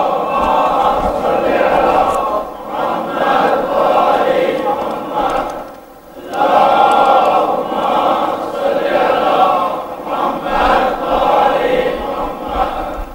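Congregation of many voices chanting together in unison, in two long phrases with a short break about six seconds in.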